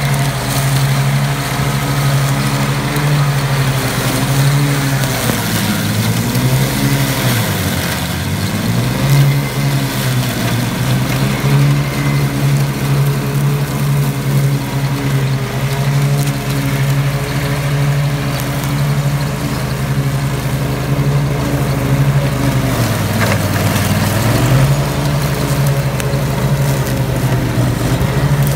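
Ride-on lawn tractor's engine running steadily at mowing speed as it mulches blackberry and scrub, its note sagging in pitch twice, about eight seconds in and again near the end, then picking back up.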